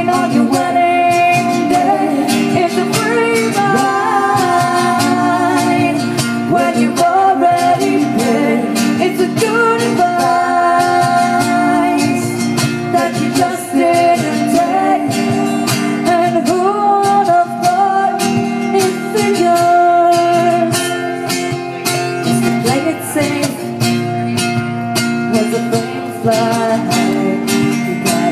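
Live acoustic band music: a woman singing a melody over a strummed acoustic guitar, played through a PA.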